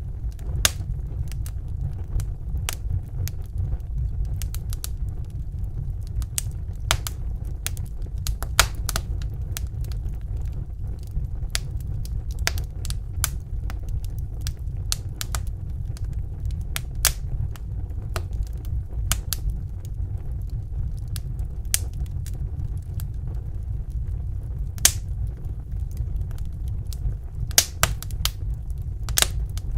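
Wood fire in a fireplace crackling, with irregular sharp pops and snaps several times a second over a steady low rumble. A few pops stand out louder, one about eight seconds in and a cluster near the end.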